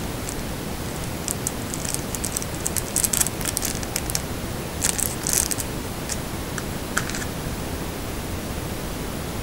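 A plastic packaging bag crinkling and crackling as it is handled, in two main flurries and a last crackle about seven seconds in, over a steady hiss.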